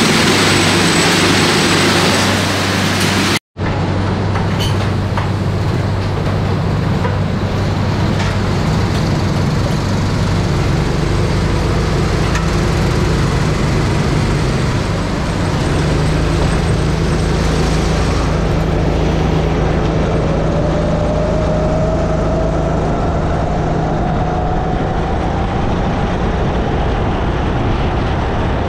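Sodi RX-8 rental kart's 270cc single-cylinder four-stroke engine running on track, its note climbing slowly in the last third as it gathers speed. It opens under a loud rushing noise that stops abruptly with a brief dropout about three and a half seconds in.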